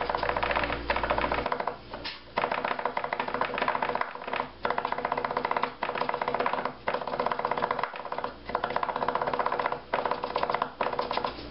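Kitchen knife mincing garlic on a bamboo cutting board with a rocking cross-cut: fast runs of light taps on the wood, broken by short pauses every couple of seconds.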